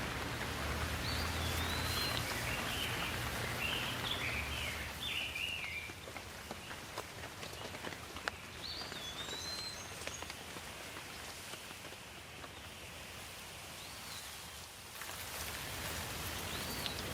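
Steady rain falling, with birds chirping now and then: a run of calls over the first few seconds, a few more near the middle and single calls near the end. The rain gets softer about six seconds in and heavier again shortly before the end.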